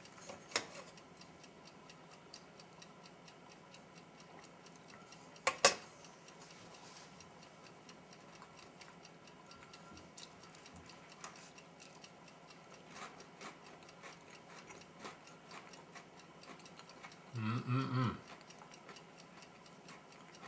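Faint, steady, even ticking throughout. There is one sharp click about five and a half seconds in and a brief low sound near the end.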